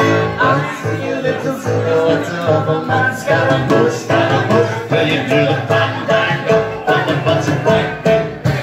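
Live band music: grand piano and drum kit playing a rock song with a steady beat.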